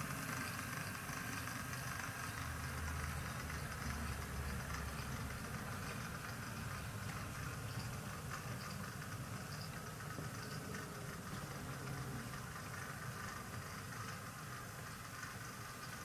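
Model railway locomotive running on the layout: a steady engine-like mechanical hum that fades slightly towards the end.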